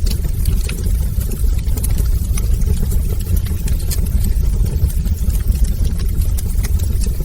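Fire burning in a fireplace: a steady low roar with many scattered small crackles and pops.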